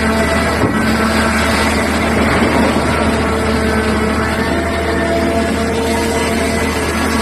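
Liebherr R9800 mining excavator's diesel engines running steadily, a loud low drone with higher whining tones that drift slightly up and down in pitch.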